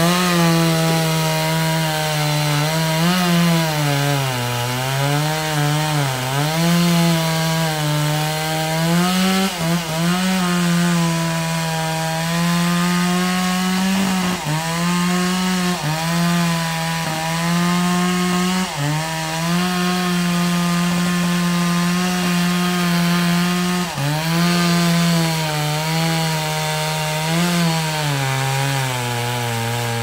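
Gasoline chainsaw cutting deep into a large trembesi log, running at high revs with its pitch repeatedly dipping and recovering as the bar loads and frees in the cut.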